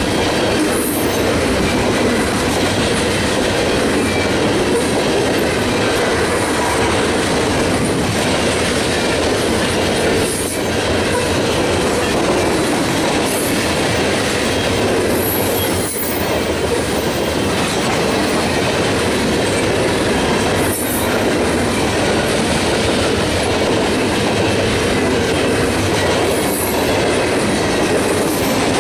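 Steel wheels of a long train of coal hopper cars rolling past on the rails: a steady, loud rolling noise, with a few brief high-pitched wheel squeals every several seconds.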